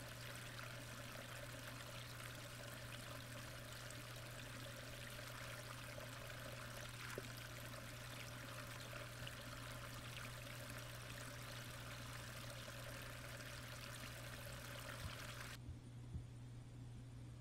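Steady rush of flowing water heard through an underwater camera in a koi pond, over a low steady hum. About two seconds before the end, the rushing cuts off abruptly, leaving the hum and a few low knocks.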